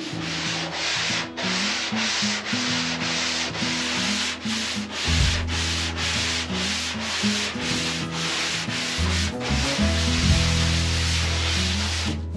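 Hand sanding with a sanding block over faired filler, in steady back-and-forth strokes at about two to three a second. A blue Dykem guide coat is being sanded off to find the low spots that still need filling.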